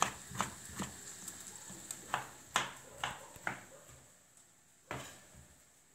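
Kitchen knife dicing a tomato on a wooden cutting board: about eight uneven knocks of the blade striking the board, growing fainter toward the end.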